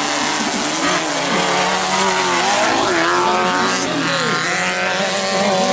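Engines of several off-road racing buggies running hard at once, their pitches rising and falling separately as the drivers rev and shift around the dirt track.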